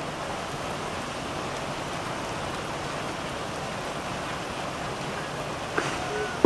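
Steady hiss of rain falling, with a few short clicks and chirps near the end.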